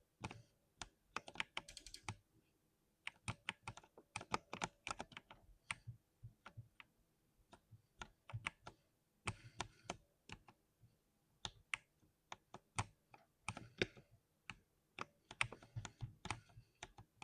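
Typing on a 60% keyboard: quick runs of key clicks and clacks with brief pauses between bursts.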